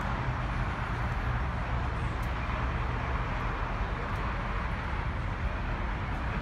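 Steady low rumble of an idling car engine under constant outdoor background noise.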